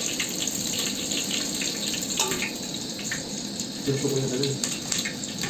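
Green chillies sizzling steadily in hot oil in an aluminium pot, with a few light clicks of a wire skimmer. A brief voice is heard about four seconds in.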